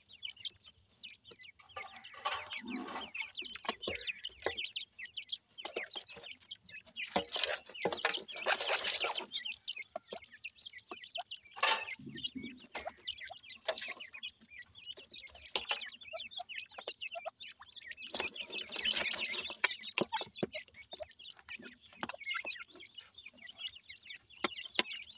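A brood of francolin chicks with their mother, calling in flurries of short high cheeps while scratching and pecking in loose dry soil.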